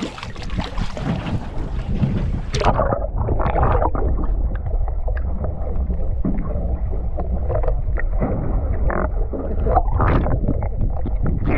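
Wind buffeting the microphone over water, then about two and a half seconds in the camera plunges under the surface and the sound turns suddenly muffled and dull, with underwater sloshing, gurgling and a few splashes.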